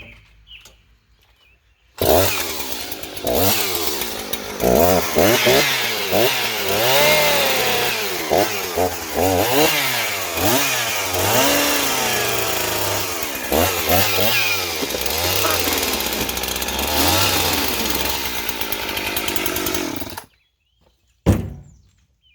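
Two-stroke chainsaw revving up and down over and over as it cuts open a cardboard box. It starts suddenly about two seconds in and stops suddenly near the end, followed by a single thump.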